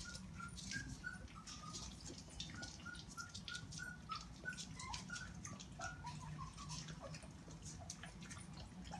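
Four-week-old goldendoodle puppies giving a string of short, high squeaks and whimpers, a few a second, over soft clicking from lapping and eating at their bowls.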